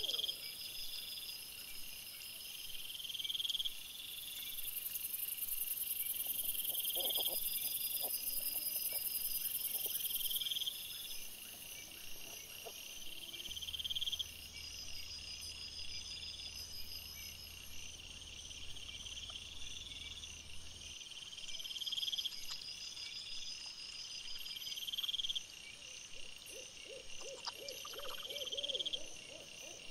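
Night ambience of animal calls: a short rising high call repeating about every two seconds over steady high chirping, with a few lower pulsing sounds about a quarter of the way in and near the end.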